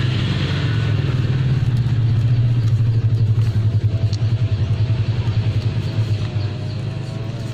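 A low, steady engine rumble with a fast throb, like a motor vehicle running, easing slightly near the end.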